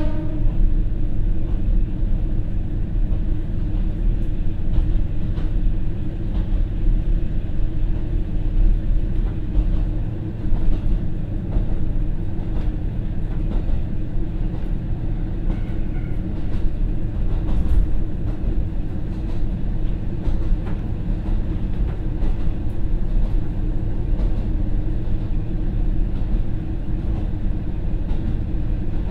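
Inside a KiHa 40 diesel railcar on the move: its original, non-direct-injection DMF15HSA diesel engine runs with a steady drone over the rumble of the wheels, with occasional faint clicks of the wheels passing rail joints.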